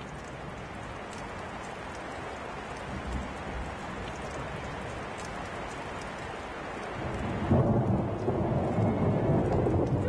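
A steady rushing noise, like heavy rain or running water; about seven and a half seconds in it grows louder and music with held tones comes in.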